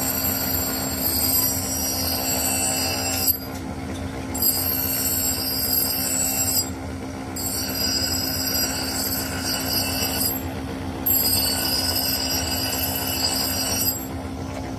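Shaft-mounted abrasive grinding wheel grinding a railroad-rail steel axe head: a high-pitched screech whenever the steel is pressed to the wheel, in four stretches of two to three seconds each, broken by short pauses when the piece is lifted off. The steady hum of the spinning grinder runs underneath.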